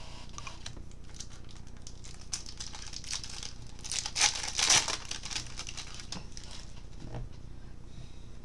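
Baseball card pack wrapper crinkling and tearing as it is opened, loudest about four to five seconds in, with scattered small clicks of cards being handled.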